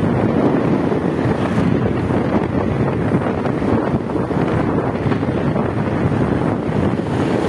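Wind buffeting the microphone of a handlebar-mounted camera on a moving motorcycle: a loud, steady rushing noise, with the bike's running engine and road noise underneath.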